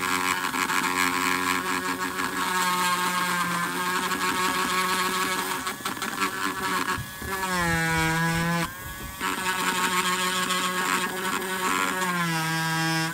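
Handheld rotary tool with a fine engraving bit running at high speed, engraving scale texture into Apoxie Sculpt epoxy clay; a steady, high whine. Its pitch drops for about a second and a half after the middle and again near the end.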